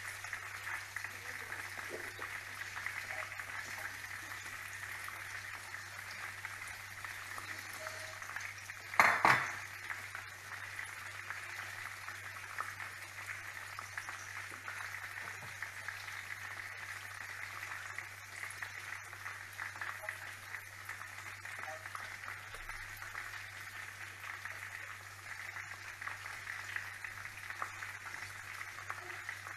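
Marinated chicken pieces frying slowly in hot oil, sizzling steadily. A brief loud sound stands out about nine seconds in.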